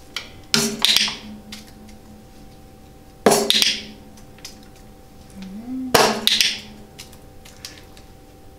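A Spitzhauben hen pecking the small cymbal of a toy drum kit three times, about two and a half seconds apart. Each peck is a sharp metallic crash that rings on for about half a second.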